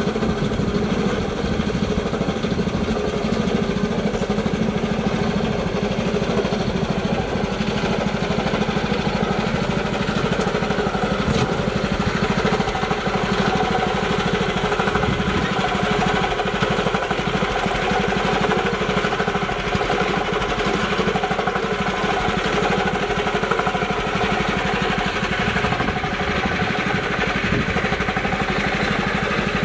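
Small engine of a mini tractor styled as a Massey Ferguson 360, running steadily as it pulls a loaded trailer over rough dirt.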